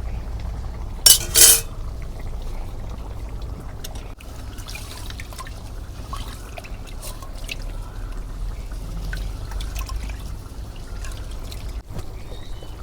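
Chicken curry bubbling in a pot over a wood fire, with scattered small pops and ticks over a low rumble. Two short, loud clatters come about a second in.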